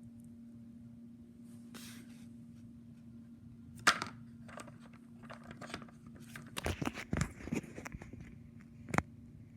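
Fidget toys being handled: a sharp click about four seconds in, a quick flurry of clicks and rattles a few seconds later, and one more sharp click near the end, over a faint steady hum.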